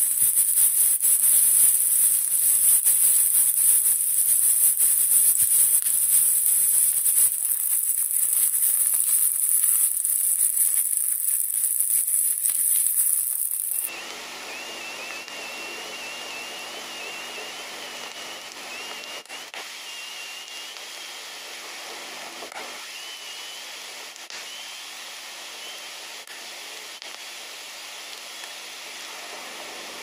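Oyster mushrooms and onion sizzling as they fry in a pan: a loud, steady hiss that drops away suddenly about 14 seconds in. A quieter hiss follows, with a thin wavering high tone that comes and goes.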